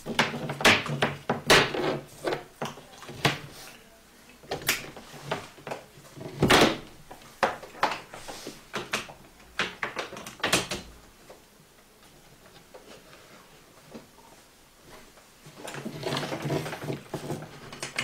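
A run of sharp clicks and small knocks from things being handled on a wooden tabletop, with one heavier knock about six and a half seconds in, then a few quieter seconds.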